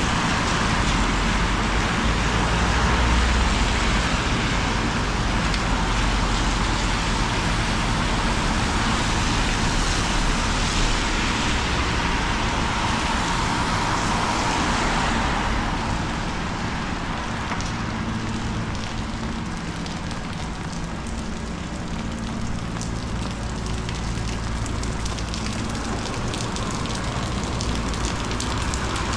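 Wind and rain on a street, with wind rumbling on the microphone. The noise eases about halfway through.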